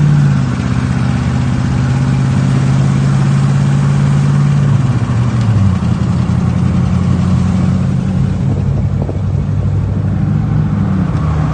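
Gasoline engine with distributor ignition, running at a fast idle that drops to a slower, steady idle about five seconds in.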